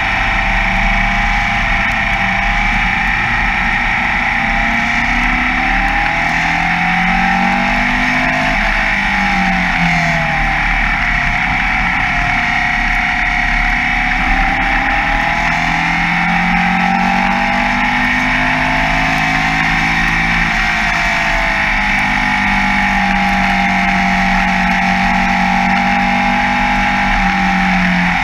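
Formula Vee racing car's air-cooled Volkswagen flat-four engine running hard at racing speed, picked up by a camera mounted on the car. Its note rises and falls in smooth sweeps as the car accelerates, brakes and shifts through the corners, over a steady rushing noise.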